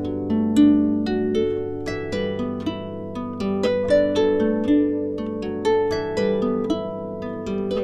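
Background music: a melody of plucked string notes, each struck sharply and then fading, several a second.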